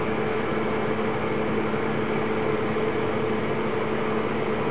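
Steady background hum and hiss with a few low, even tones, unchanging throughout.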